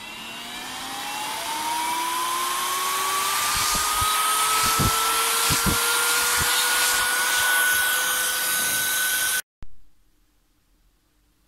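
Electric air blower running over an open watch dial to blow off a speck of dust: a strong rush of air with a motor whine that rises steadily in pitch as it spins up. It stops abruptly about nine and a half seconds in.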